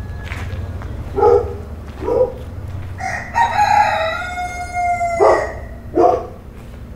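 A rooster crows once, a long call of about two seconds that drops in pitch at the end, with shorter calls about a second in, two seconds in and near the end, over a steady low rumble.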